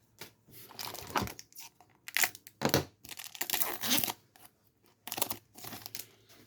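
A Pokémon booster pack's foil wrapper being torn open and crinkled: a string of short, irregular rips and rustles, the sharpest a little after two seconds in.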